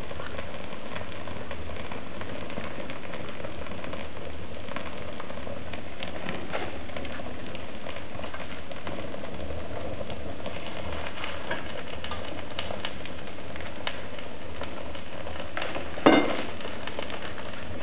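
Fire crackling in a wood-burning stove as it burns a leather boot, with scattered small pops over a steady noise and one loud, sharp pop near the end.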